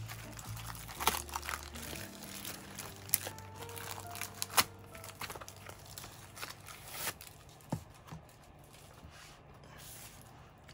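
Clear plastic sleeve crinkling and rustling in a few short, sharp bursts as a coloring book is handled and turned over. Quiet background music plays under it and fades out partway through.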